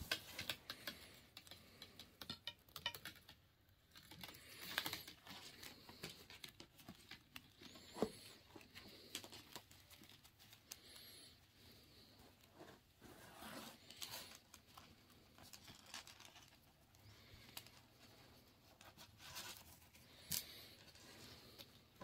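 Faint rustling and scraping of nylon paracord strands and tubular webbing being handled and pulled through one another, with scattered small clicks and taps.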